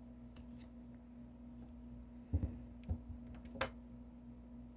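A few soft clicks and knocks from handling craft materials, over a steady low hum.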